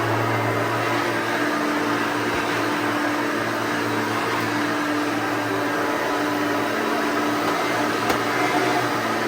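1989 Hoover Elite 5.2 (U4483) upright vacuum cleaner running steadily on its 5.2-amp motor, a constant hum with airflow.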